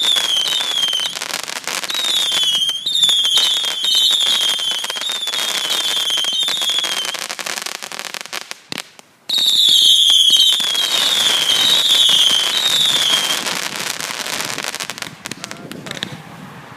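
Fireworks International Cap'n Jake's Treasure Chest 240-shot cake firing: a rapid run of spiralling whistles, each dropping in pitch, over continuous crackling and popping. About nine seconds in it briefly goes almost quiet, then a new loud volley of whistles starts. The firing tapers off near the end.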